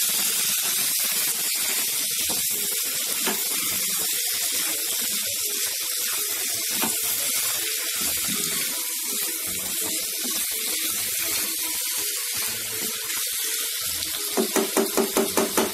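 Spatula stirring cooked potato and kohlrabi pieces in a nonstick kadai over a steady sizzling hiss, with a quick run of rhythmic strokes near the end.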